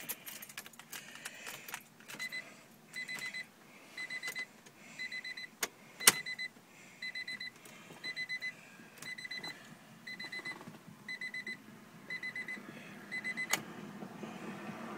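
Car dashboard warning chime beeping with the key in the ignition. It goes in short pulsed beeps, mostly in pairs about once a second, and there are a few sharp clicks in the middle and near the end.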